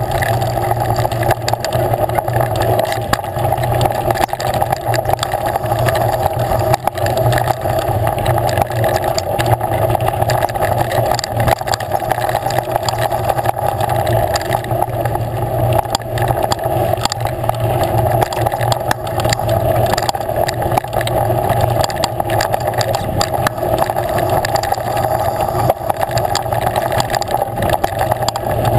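Steady wind rush on an action camera's microphone while riding a bike down a dirt singletrack, with constant rattling and clicking from the trail chatter.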